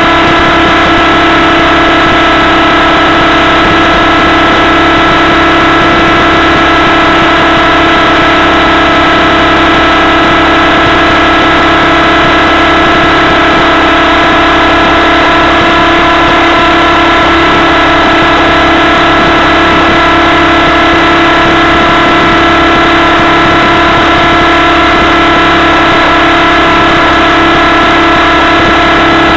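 Two-stroke glow engine of a Hirobo Sceadu EVO .30 radio-controlled helicopter running loud and close at a steady, unchanging speed, heard through a camera mounted on the helicopter.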